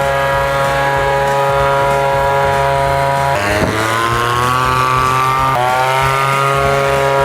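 Hecht 9259 leaf blower's small air-cooled two-stroke petrol engine running at high speed. Its pitch jumps abruptly a couple of times and climbs steadily as it revs up, from about three and a half seconds in.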